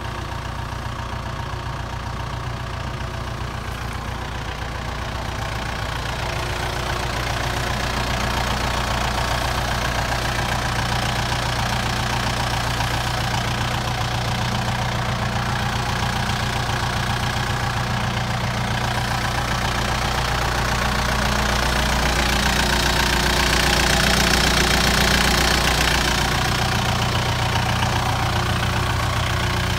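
Kubota M7040 tractor's four-cylinder diesel engine idling steadily. It grows louder about six seconds in and is loudest about three quarters of the way through, then eases back a little.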